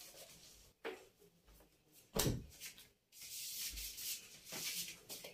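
Off-camera rubbing and rustling handling noises, with a knock just under a second in and a louder thump a little after two seconds, followed by a couple of seconds of hissing rustle.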